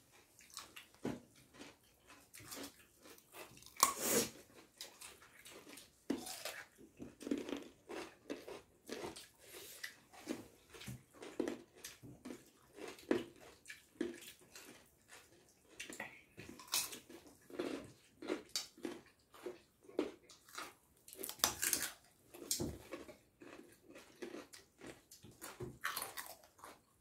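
Several people eating rice and egg curry with their hands: chewing and lip-smacking, with fingers mixing rice on steel plates. It comes as many short, irregular smacks and clicks.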